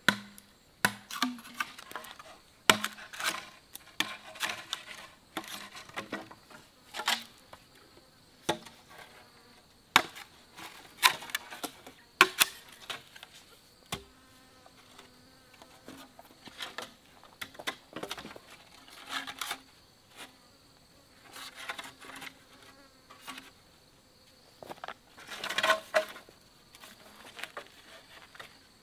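Irregular knocks and clatter of green bamboo poles being handled and set up into a frame, a few sharp loud ones among many softer ones. A steady high-pitched insect buzz runs underneath.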